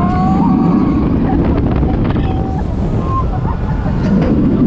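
Steady wind rush and rumble of a B&M steel hyper coaster train running at speed, with wind hitting the front-row microphone. Thin high tones rise and fall over it, one long one in the first second and a few short ones later.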